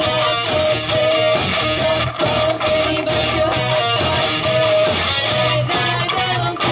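Live rock band playing an instrumental break with no singing: electric guitar playing sustained melody notes over bass guitar and steady drum hits.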